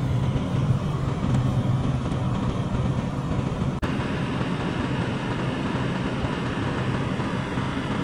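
Steady road noise heard from inside a moving car's cabin on snow-covered streets: a low hum with tyre rumble. The sound briefly cuts out about four seconds in.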